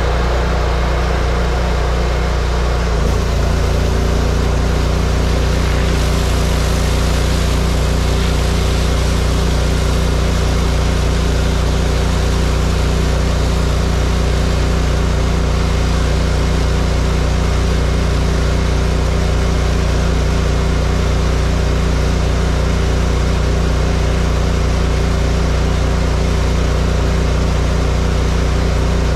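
A pressure-washer engine in the work van runs steadily at a constant speed; its note changes and settles into a steadier, slightly louder run about three seconds in.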